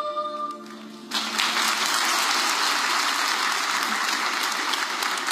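A held musical note dies away in the first second, then an auditorium audience breaks into steady applause.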